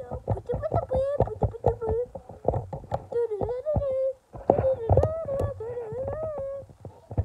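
A child humming or vocalising a wavering, sliding tune with his mouth, over many rapid clicks and knocks, with a brief break about four seconds in.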